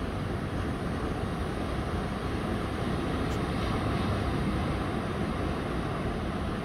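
Ocean surf breaking and washing onto a sand beach in a typhoon's advance swell: a steady rushing that swells slightly about halfway through, with wind rumbling on the microphone.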